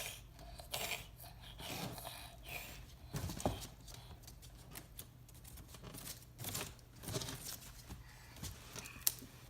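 Irregular scratching, crackling and small knocks as a toddler grabs and pulls at a basket.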